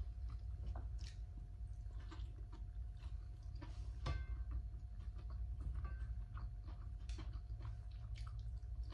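A person chewing and eating, with small scattered clicks. About four seconds in comes one sharp, briefly ringing clink of a utensil on a plate. A faint steady hum sits underneath.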